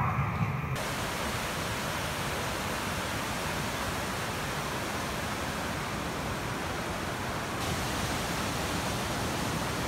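Steady rushing of falling water, a waterfall's even roar, cutting in suddenly just under a second in.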